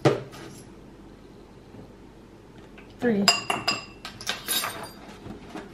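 A metal spoon clinking against a ceramic bowl several times, with a short ringing tone after each clink, between about three and five seconds in. A single sharp knock comes right at the start.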